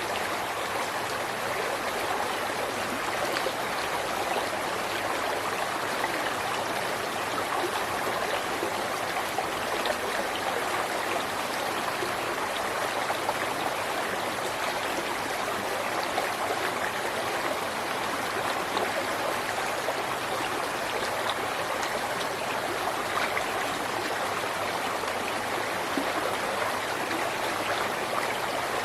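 A river or stream flowing over rocks: a steady rushing and babbling of water with small splashes scattered through it.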